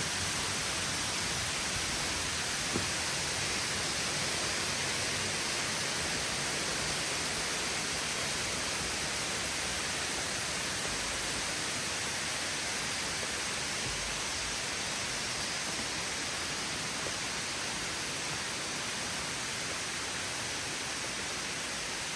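Steady rushing hiss of waterfall cascades, even and unbroken, with one small click a little under three seconds in.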